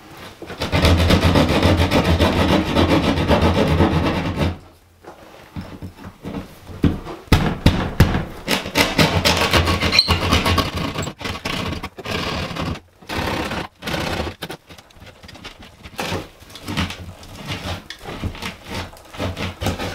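Small hand saw rasping and scraping at the edges of a hole in an old plaster wall, cutting it square. A steady run of quick strokes comes first, then after about four seconds shorter, broken strokes and scrapes.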